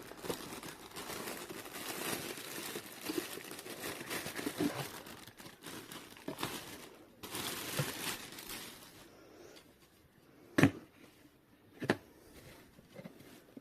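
Plastic packaging crinkling and rustling as it is handled, followed by two sharp knocks near the end.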